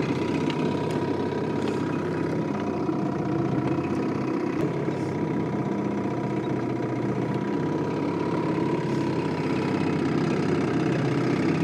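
Small outboard motor running steadily, driving the fishing boat across the lake.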